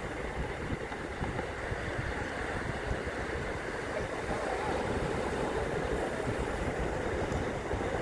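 Wind buffeting the microphone in a steady low rumble over the wash of breaking surf.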